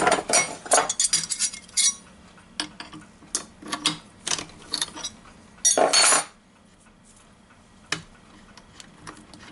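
Small metal hardware and hand tools being handled on a workbench, clinking and clicking: a dense clatter in the first two seconds, a longer rattle about six seconds in, then a few scattered clicks.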